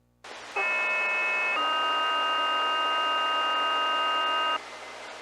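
Two-tone sequential fire pager alert received over VHF low-band radio: a steady tone for about a second, then a second tone of a different pitch held for about three seconds, over radio hiss. The tone pair is the weekly test signal that sets off the fire department's pagers.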